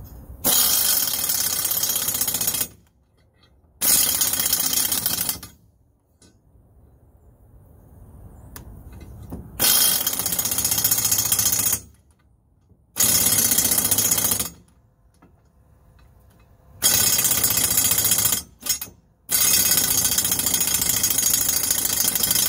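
Pneumatic air wrench running in repeated bursts of a second or two to a few seconds, about six times with short pauses between, driving nuts onto exhaust studs to fasten a pipe flange to the exhaust manifold.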